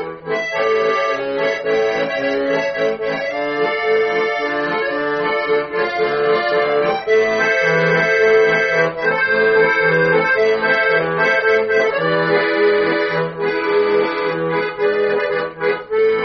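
Bayan (Russian button accordion) playing an instrumental break between sung verses: a melody over sustained chords, with bass notes in a steady rhythm.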